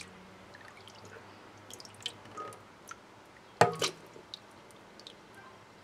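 Scattered drips and small splashes of water in a wok standing in a steel sink, with one louder knock about three and a half seconds in.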